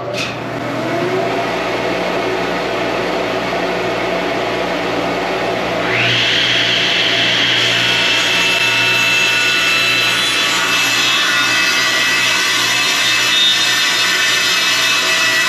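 Laguna Fusion F1 table saw starting up and whining up to speed, then about six seconds in the blade bites into a hardwood board, taken for white oak, and runs steadily through a long rip cut.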